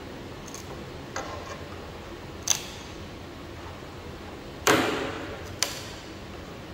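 Hand tools clicking and knocking against hardwood planks on a workbench: half a dozen separate sharp clicks, the loudest just before five seconds in with a short ring after it.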